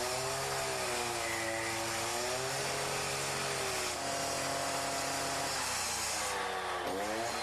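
Gas-powered disc cutter with a diamond blade cutting through a poured concrete wall. The engine runs hard under load, its pitch wavering as the blade bites, with a brief dip and recovery near the end.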